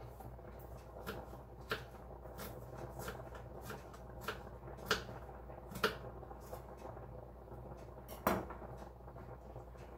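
Kitchen knife dicing an onion on a cutting board: irregular taps of the blade against the board, with one heavier knock near the end.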